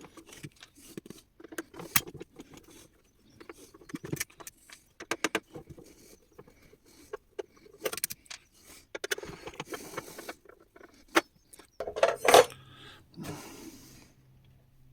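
Handling noise from working inside an opened site radio: irregular clicks, taps and light rattles of plastic housing parts, the speaker and its wires being moved by hand, with a brief rustle about nine seconds in and a louder clatter about twelve seconds in.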